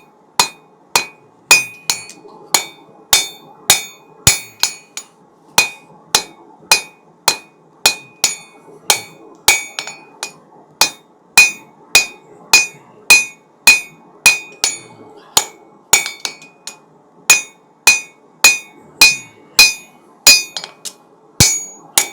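Hand hammer striking hot steel over an anvil horn in a steady rhythm of about two blows a second, each blow leaving a short bright ring: drawing out a knife point by forging straight down over the horn.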